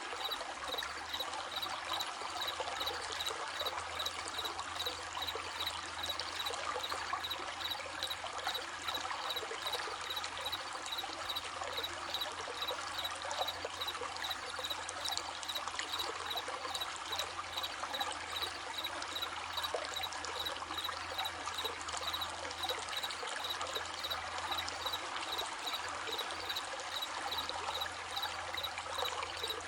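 Running stream splashing steadily, with crickets chirping in a regular, even pulse.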